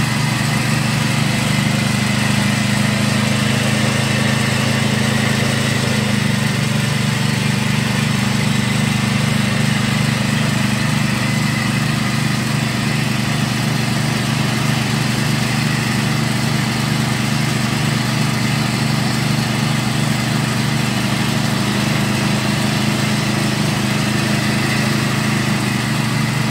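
Peanut grinding machine running steadily, its auger grinding peanuts and pushing them out through the grinder plate: a continuous low mechanical hum that does not change.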